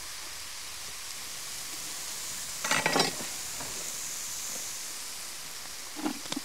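Chanterelle mushrooms with onion and garlic sizzling steadily in a frying pan, with a brief louder clatter about three seconds in and a few short knocks near the end.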